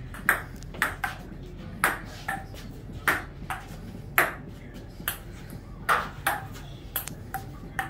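Table tennis rally: the ball clicking sharply off rubber paddles and the JOOLA table, roughly one tick every half second, with a short break about halfway through before the back-and-forth picks up again.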